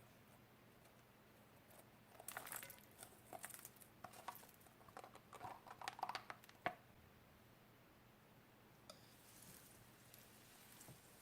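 Slime being handled and worked by hand: faint, soft crackling and squelching pops in clusters from about two to seven seconds in, with quiet before and after.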